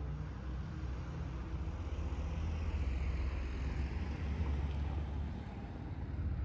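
Car driving past on the street close by: engine and tyre noise that builds near the end, over a steady low rumble.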